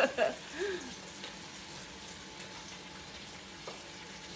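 Pork sausages and bacon sizzling steadily in a frying pan as they brown, with the odd faint pop.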